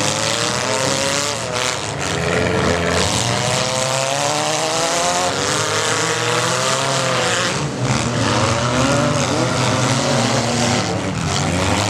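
Several small demolition-derby car engines revving up and down at once, their pitches rising and falling as the cars manoeuvre, with a few short thuds of impacts.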